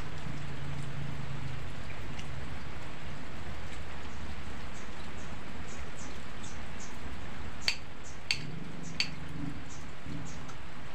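Steady rain, with light scattered drips throughout. Three sharp clicks about eight seconds in, roughly half a second apart.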